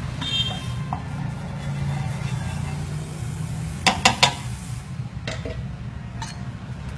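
Wooden chopsticks clicking against a nonstick frying pan, three quick taps a little after midway and one more about a second later, over a steady low rumble.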